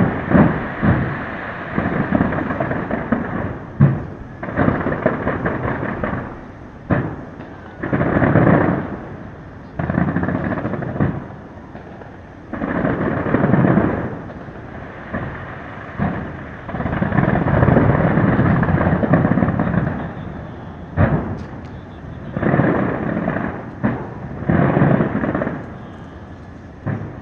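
Fireworks display: shells bursting in repeated waves of booming and crackling, each lasting a second or two, with a few sharp single bangs between them.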